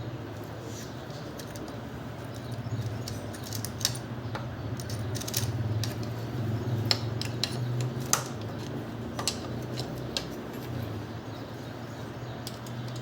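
Light metallic clicks and clinks of hand work on a small motorcycle engine's cam sprocket and timing chain while the cam timing is set, over a steady low hum.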